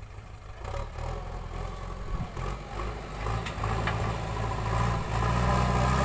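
Diesel engine of a JCB 3DX backhoe loader running steadily as the machine drives closer, getting louder from about halfway in.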